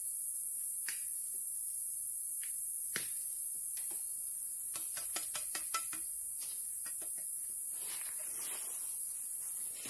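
A knife chopping and digging at the base of a bamboo clump to cut out a young bamboo shoot: scattered sharp knocks, a quick run of them about five seconds in, with dry leaves rustling. A steady high-pitched hiss runs under it all.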